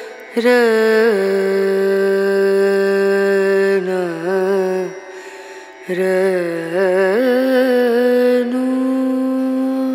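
Background music: a single slow melodic line holding long steady notes, sliding and wavering between them, with a short break about five seconds in.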